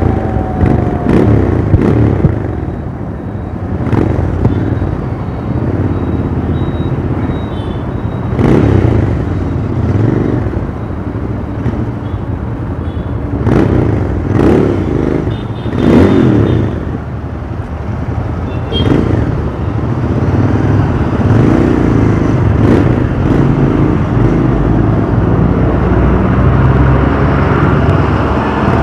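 Royal Enfield Interceptor 650's 648 cc parallel-twin engine and exhaust, heard from the saddle while riding in traffic, the revs rising and falling repeatedly with the throttle.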